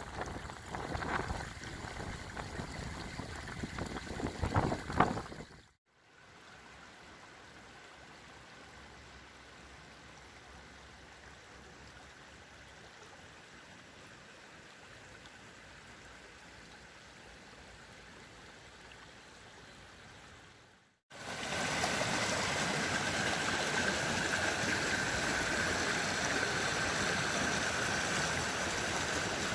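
Floodwater of the Doubs running over flooded ground, heard in three takes: first uneven and louder, then a faint, steady hiss of shallow water over a meadow, and from about two-thirds of the way in a steady, louder rush of water pouring over a bank through reeds.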